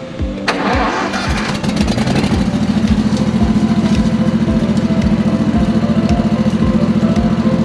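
37 hp Billy Goat truck-loader debris vacuum coming up to speed. There is a sudden rush of air and engine noise about half a second in, then the engine settles into a loud, steady run at full throttle. A music track with a steady beat plays underneath.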